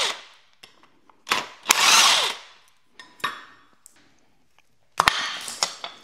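Cordless drill with a socket running in several short bursts, each under a second, as it spins bolts off an engine's accessories during teardown. A few sharp metal clicks fall between the bursts.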